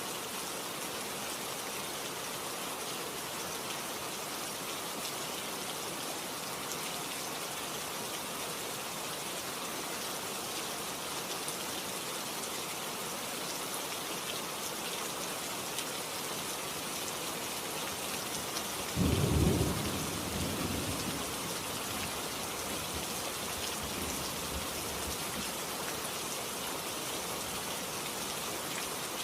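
Steady heavy rain hissing on surfaces, with one clap of thunder about two-thirds of the way through that rumbles low and dies away over a few seconds.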